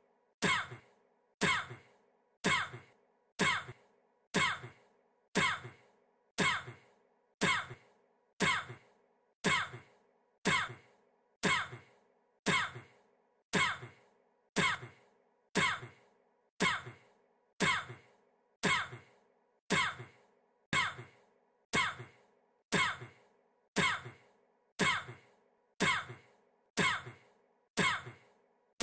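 A man's short cough, looped so that the identical cough repeats about once a second, each one sharp at the start and quickly dying away.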